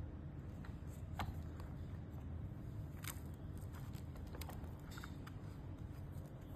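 Scattered light clicks and taps of small parts and tools being handled while the remote-control car is worked on, over a steady low hum.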